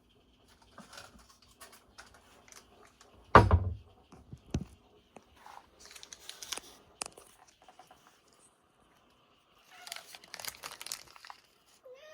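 Packaging crinkling and tearing, with scattered light knocks and one loud thump about three and a half seconds in.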